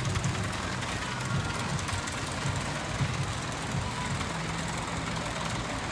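Steel looping roller coaster train running along its track, a steady rumble of wheels on steel rail.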